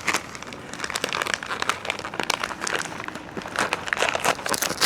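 Crinkly plastic rustling and crackling in a steady run of irregular crinkles as it is handled and opened.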